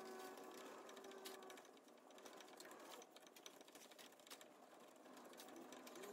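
Faint, near-silent clicking of a guitar-style tuning key being turned to tighten a steel cutting wire on a wire soap log splitter, with a faint thin tone in the first second and a half.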